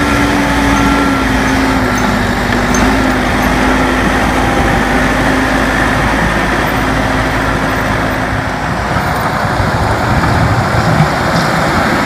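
Caterpillar 416C backhoe loader's diesel engine running steadily under load as the front bucket pushes deep snow, its note sinking slightly over several seconds. A repeated beep sounds during the first three seconds.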